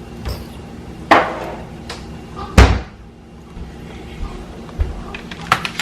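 A few sharp knocks and clatters of things being handled and set down, the loudest about two and a half seconds in, another about a second in, and lighter clicks near the end.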